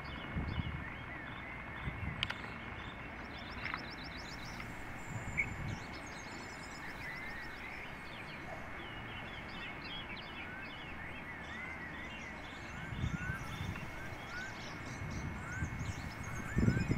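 Small songbirds chirping and twittering: many short rising chirps with a few fast trills, over steady outdoor background noise. Low rumbles come near the start and again near the end.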